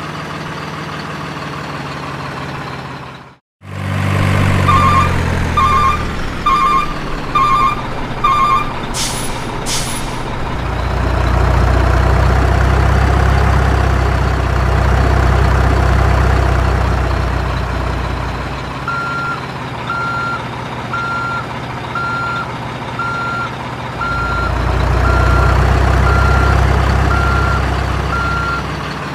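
Heavy truck engine running, with a brief gap about three seconds in, then getting louder twice. There is a short run of beeps and two short air-brake hisses, then steady reversing beeps about once a second.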